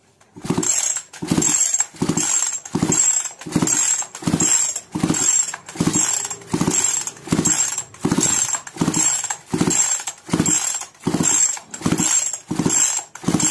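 Recoil starter of a Kisan Kraft KKC SP6522 two-stroke chainsaw pulled over and over in quick, even strokes, nearly two a second, each with a high whir. It is turning the engine over with the spark plug out of the cylinder on its cap, a spark test, and the plug is sparking. The pulls start about half a second in and stop near the end.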